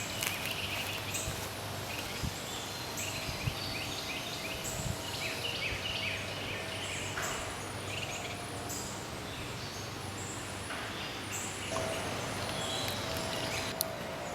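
Wild birds calling: many short chirps and trills from several birds, over a steady outdoor background.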